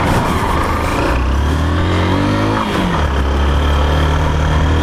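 Honda XRE 190's single-cylinder engine pulling under throttle: its pitch rises for about a second and a half, drops suddenly with a gear change a little before three seconds in, then holds steady. Wind noise rushes over the microphone throughout.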